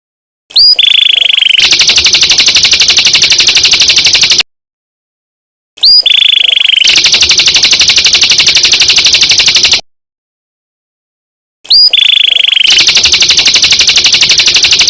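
Kecial kombok (cucak kombok) song played three times as identical, looped phrases about six seconds apart, very loud and clipping. Each phrase starts with a short rising whistle and a falling note, then runs into a fast, even buzzing trill that lasts about three seconds.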